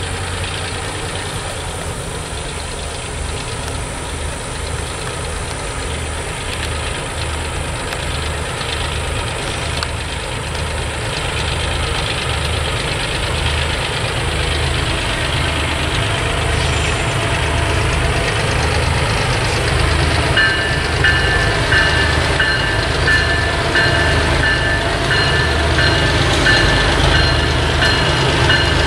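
Diesel locomotive engine running and drawing closer, a low rhythmic throb that grows louder. About two-thirds of the way through, a bell starts ringing steadily, about one and a half strokes a second.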